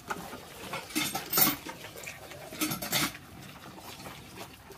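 A cow eating feed from a metal bowl, its muzzle knocking and scraping against the bowl in a few irregular knocks and scrapes.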